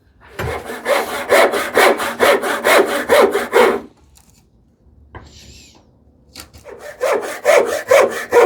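Fine-toothed hand saw cutting a small tenon in a thin wooden piece, with steady back-and-forth strokes at about two a second. The strokes come in two runs, with a pause of about two seconds between them.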